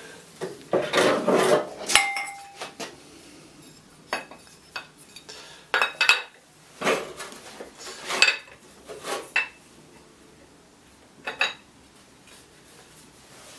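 Metal parts being handled, clinking and knocking against each other at irregular moments. One knock about two seconds in leaves a short metallic ring.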